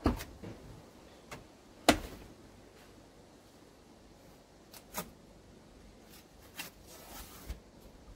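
Van's front cab door unlatched with a sharp click and swung open, with a louder knock about two seconds in. A few quieter clicks and taps follow as the doorway is worked in.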